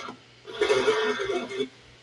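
A person's voice, a short unclear utterance lasting about a second, over a faint low steady hum.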